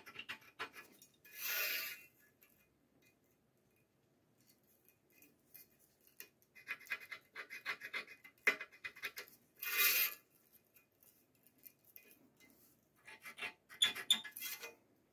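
Steel scriber scratching marking-out lines into a steel plate along a steel rule, in clusters of short scratchy strokes, with two louder half-second rasps, one about a second and a half in and one about ten seconds in.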